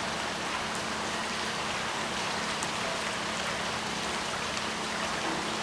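Steady light rain falling, an even hiss with a few faint drop ticks, in the wake of a hurricane.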